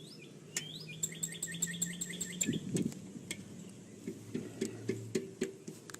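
A songbird sings a quick run of repeated chirps about a second in, over scattered sharp clicks and knocks.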